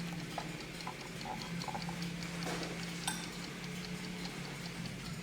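Vintage Schatz Elexacta wall clock ticking quickly and evenly, about four or five ticks a second, over a steady low hum.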